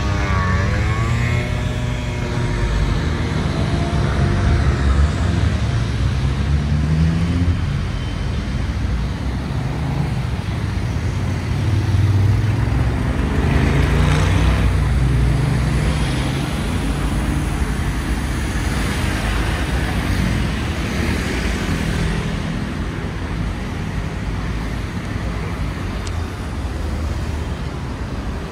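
City street traffic: cars and motorbikes driving past close by, a steady rumble of engines and tyres. About a second in, one engine passes with a falling pitch.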